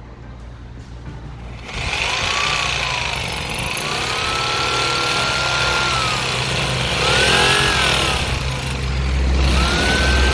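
Oscillating multi-tool cutting through the motorhome's fiberglass, wood and foam wall, starting about two seconds in. Its whine rises, holds and dips several times as the load on the blade changes.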